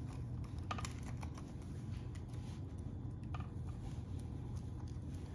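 Faint, scattered light clicks and taps of hands handling a plastic gauge cluster and its thin adhesive gauge-face overlay, over a steady low hum.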